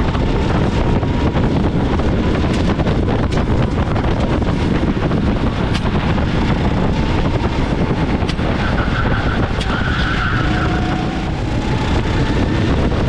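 A 390 cc go-kart engine running at speed, heard onboard under heavy wind buffeting on the camera microphone. A brief squeal, likely the tyres sliding through a corner, comes about nine seconds in.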